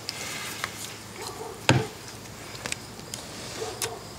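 Snap ring pliers working at a piston-pin retaining clip in an old cast piston: small metal clicks and scrapes, with one sharp click about one and a half seconds in.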